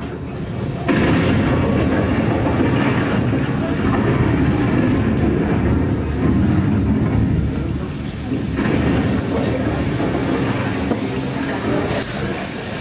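Recorded thunderstorm sound effect: rumbling thunder over rain noise, coming in suddenly about a second in and easing briefly near the end.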